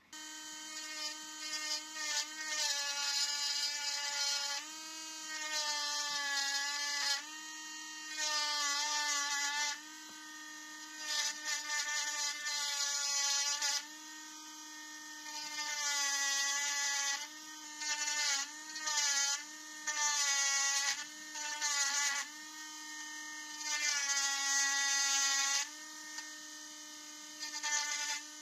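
Mini rotary engraver pen running with a high whine, its pitch sagging slightly as the fine bit is pressed into the wooden knife handle. Louder spells with a bright grinding hiss, a few seconds each, alternate with quieter running between passes.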